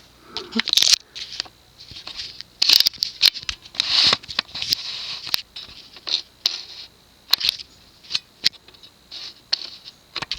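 Close handling noise: irregular rustling and scratching with a scatter of sharp clicks and taps, as objects are picked up and moved near the microphone.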